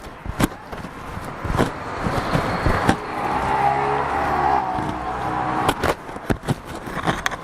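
A motor vehicle passing close by: an engine hum swells from about two and a half seconds in, bends slightly in pitch and fades away by about six seconds. Scattered knocks and clicks are heard throughout.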